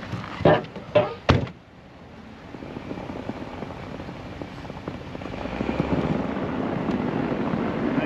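A few knocks, the loudest about a second in as the pickup's door shuts; then the pickup's engine grows louder over several seconds and settles into a steady run as it takes up a tow strap to pull a stuck plow truck free.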